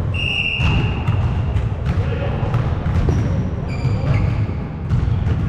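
Athletic shoes squeaking on a hardwood gym floor, loudest just after the start and again around the middle, with a few thuds of a volleyball being played, over a steady low rumble.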